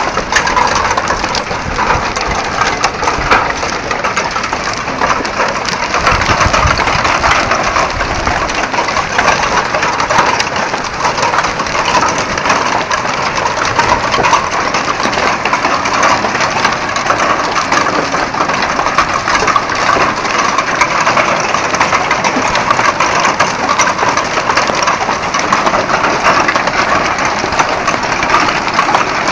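Heavy hail of large hailstones pelting down in a dense, continuous clatter of countless small hits.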